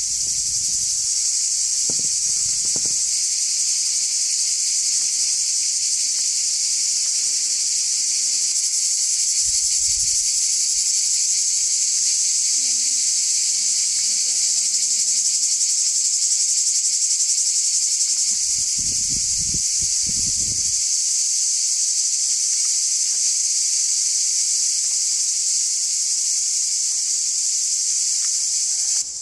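Dense, steady, high-pitched chorus of summer insects shrilling without a break.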